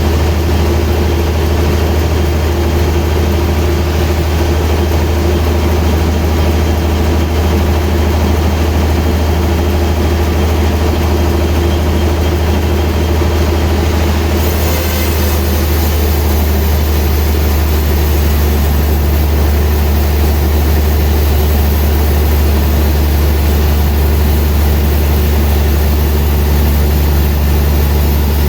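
Sawmill machinery running steadily: a loud, low engine-like drone. About halfway through, a brighter hiss joins it.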